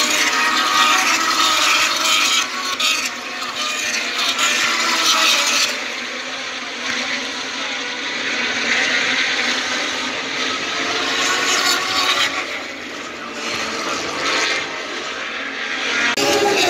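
Moto2 racing motorcycles with Triumph 765 cc three-cylinder engines running at high revs through a corner some way off: a dense mechanical whine that swells and fades as the bikes pass, easing about six seconds in and rising again around eleven seconds.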